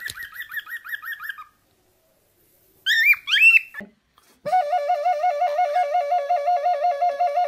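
A bird calling: a fast run of repeated chirps that stops after about a second and a half. Then come two loud rising whistled calls, and finally a long, steady warbling whistle that wavers quickly in pitch.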